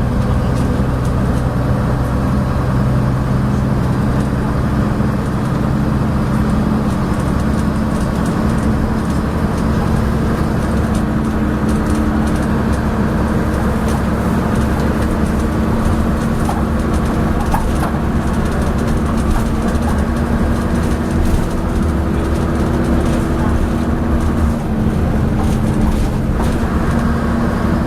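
Leyland Atlantean double-decker bus running along, its diesel engine note steady with a couple of shifts, over loud clanking and rattling from the bus.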